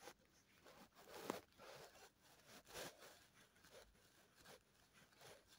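Near silence with a few soft, brief rustles, the clearest a little over a second in.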